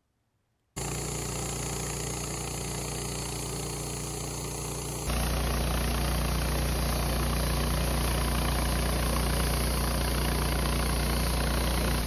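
Wood-Mizer LT15 portable sawmill running steadily. Its motor hum comes in abruptly about a second in, then gets louder and deeper about five seconds in.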